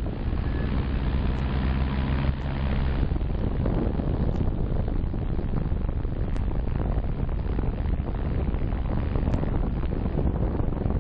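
DJI Phantom 2 quadcopter's motors and propellers whirring, heard through the GoPro carried under it, mixed with wind buffeting the microphone. The steady motor tones are clearest in the first three seconds; after that wind noise covers most of them.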